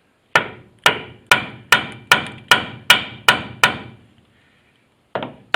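Hammer blows on metal, nine steady strikes at about two and a half a second, each ringing briefly, then a pause and two more strikes near the end: driving the halftrack's winch drive shaft loose on its spline.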